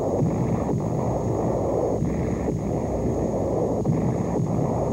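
Newsreel artillery barrage: a steady, dense low rumble of big guns firing, with no clearly separate single shots.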